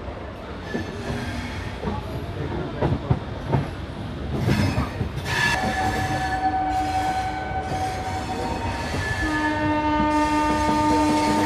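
Passenger train running with a steady rumble and a few clicks over the rail joints, then a multi-note train horn sounds twice in long blasts. The first starts about five seconds in, and the second, louder one comes near the end.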